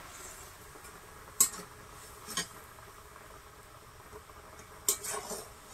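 A few sharp clinks of a metal spoon against a kadai as kofta balls go into the curry gravy, the loudest about a second and a half in and a cluster near the end. A faint steady simmer of the boiling gravy runs underneath.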